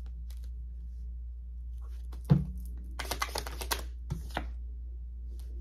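Tarot cards shuffled by hand: a thump about two seconds in, then a quick run of crisp clicking card flicks and a couple of soft knocks, over a steady low hum.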